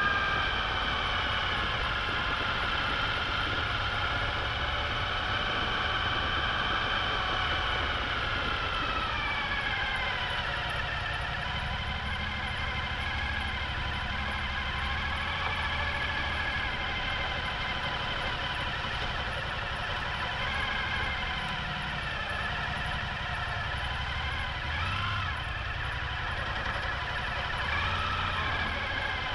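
Suzuki V-Strom motorcycle running while being ridden off road, its engine and drivetrain whine steady, with the pitch dropping about a third of the way in and rising briefly twice near the end as the throttle changes.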